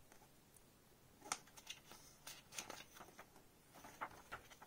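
Paper rustling as a picture-book page is lifted and turned: a scatter of faint, short crinkles and crackles starting about a second in.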